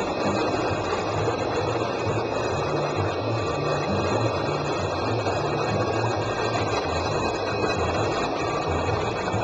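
Steady whirr of the pumps and water flow supplying a room of aquarium tanks, with a low hum underneath.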